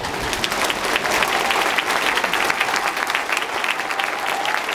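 A crowd of football supporters in the stands applauding. Many hands clap densely, building up over the first second and then holding steady.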